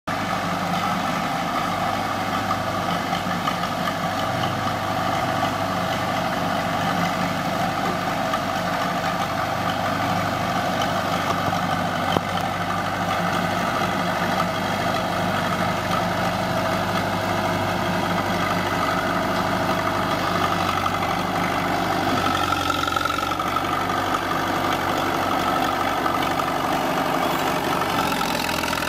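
Caterpillar D4 crawler tractor's four-cylinder diesel engine running steadily while the machine tows a scraper along a dirt path; the engine note shifts slightly about three quarters of the way through.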